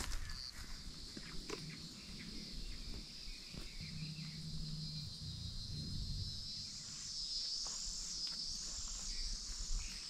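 Forest insects chirring: a steady high trill, with a second, higher call that rises and falls in slow waves joining about two-thirds of the way through.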